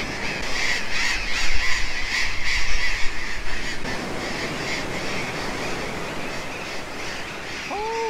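Flock of burrowing parrots screeching from their cliff colony: many harsh, overlapping calls, dense for about four seconds and then thinning out.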